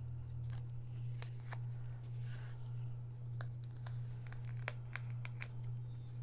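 Plastic scraper tool scraping excess air-dry clay off the top of a silicone mould: a scattering of small clicks and light scrapes, over a steady low hum.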